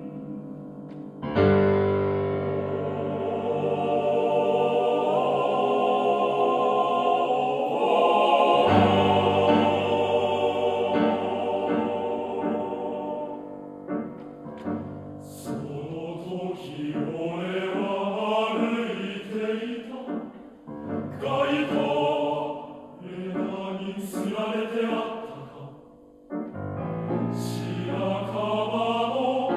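Male-voice choir with piano singing in block chords. Two long held chords come first, the second entering about a third of the way in. From about halfway the choir declaims the words in quick chords that all move together, with a short break shortly before the end.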